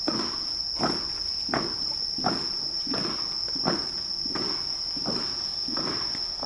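Slow, even footsteps striking hard stone, about one every 0.7 seconds, as the robed procession walks down stone steps. Under them is the steady high trill of crickets.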